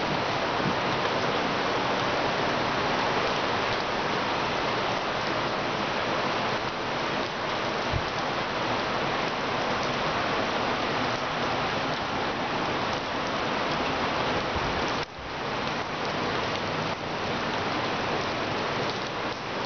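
Heavy rain falling steadily on flooded pavement, with a short dip in level about three quarters of the way through.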